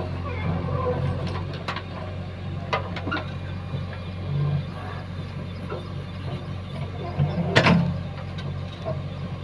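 JCB 3DX backhoe loader's diesel engine running steadily, with a few sharp knocks from the machine, the loudest about three-quarters of the way in.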